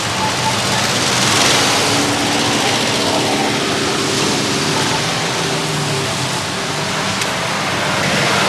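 Cars driving on a road: a steady rush of engine and tyre noise that swells about a second and a half in.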